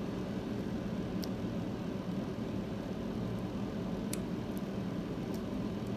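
Steady low background hum, with a few faint sharp clicks, about a second in and about four seconds in, as diagonal side cutters crack away the plastic housing of an earphone plug.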